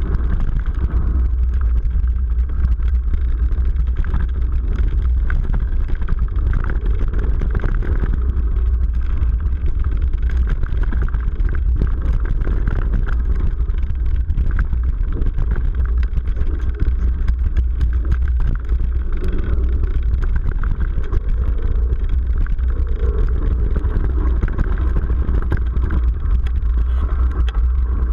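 Mountain bike ridden along a dirt trail, heard through a GoPro: a steady low rumble with many small rattles and clicks from the bike over rough ground.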